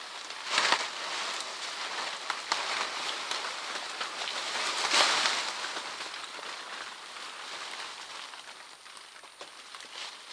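Branches and drying leaves of an orangutan's nest rustling and crackling as a person climbs out of it, with louder bursts about a second in and again around five seconds.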